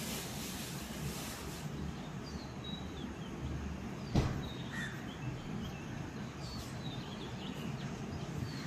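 Steady low background noise with faint, short bird chirps now and then, and one sharp knock or tap about four seconds in.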